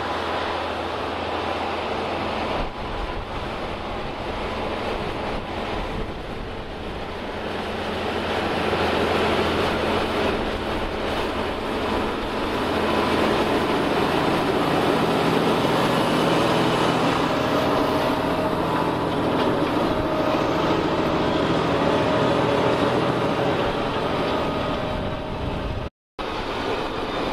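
Fendt 936 Vario tractor's 7.1-litre six-cylinder Deutz diesel running steadily under load while it pulls a ridger through the soil. It grows louder as the tractor draws near, and the sound cuts out for a moment near the end.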